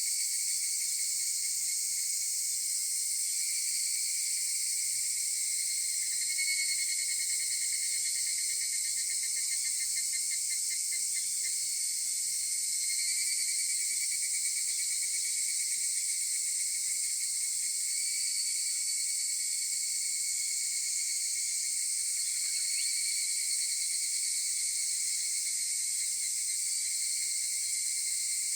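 Chorus of higurashi (evening cicadas, Tanna japonensis) calling at dawn, a steady shrill drone of many insects, with a brief run of rapid pulses about ten seconds in.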